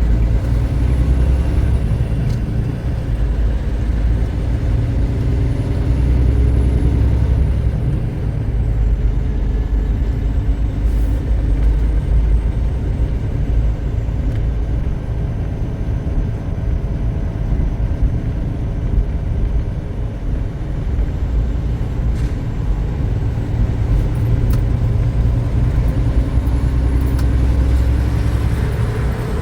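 Semi-truck engine and road noise inside the tractor's cab while driving on the highway: a steady low rumble with an engine hum that fades in the middle and comes back near the end.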